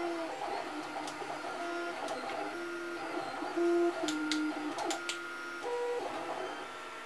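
Stepper motors of a 3D printer whining at a series of steady pitches that jump every half second or so as the moves change, with a few sharp clicks about a second in and again about four to five seconds in.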